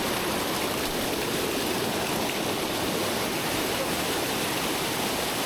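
Waterfall cascades rushing steadily over rocks, heard close by.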